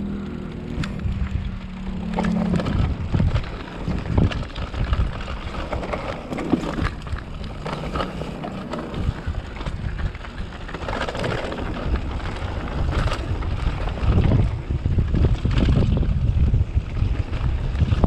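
Wind buffeting the microphone, with the rumble and clatter of a mountain bike rolling over rough trail. A steady low hum runs through the first two seconds or so, then fades.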